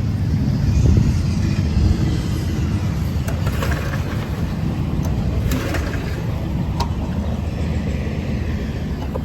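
Gas-engine air compressor on a service truck body running steadily, a little louder in the first two seconds, with a few light clicks.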